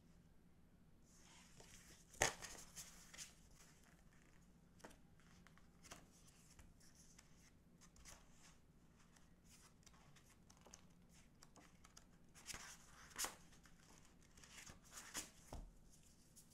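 Faint paper handling: photobook pages being turned and smoothed by gloved hands, with a sharp tap about two seconds in and a cluster of crisp taps and rustles near the end as the photocards are picked up and slid over each other.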